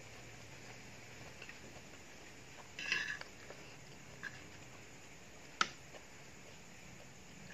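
A metal spoon scraping and tapping on a plastic plate while eating: a short rattle of scrapes about three seconds in, a small tick a second later, and a sharp click about five and a half seconds in, over faint room hiss.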